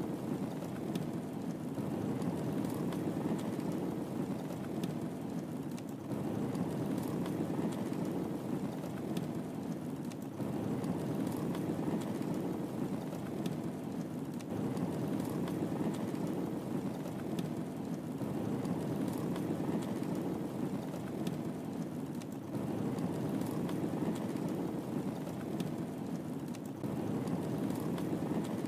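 Wood fire crackling in a fireplace: a steady low rush of flames with scattered sharp pops and snaps.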